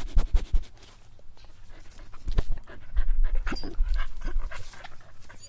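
A dog panting rapidly, with a few short high-pitched whines, over a low rumble.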